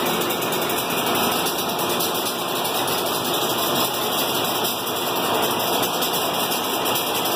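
SEPTA electric locomotive at close range, giving a steady, loud rushing noise with no clear pitch or rhythm.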